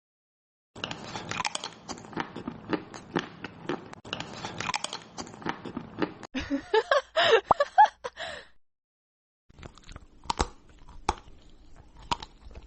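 Crunchy food being bitten and chewed in a quick run of crisp crunches. About two thirds of the way through come a few short vocal sounds that rise and fall in pitch, then a brief pause and slower crunching.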